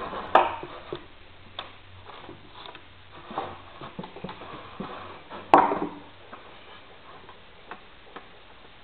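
Irregular clicks and knocks from an air hose being fitted to a small model oscillating engine and the engine being handled on a wooden bench, with two louder knocks, one about half a second in and one about five and a half seconds in. A faint steady low hum runs underneath.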